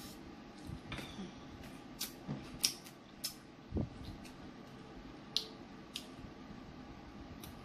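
Snow crab legs being eaten close to the microphone: a handful of sharp, scattered cracks and clicks from the shell and wet mouth smacking and sucking.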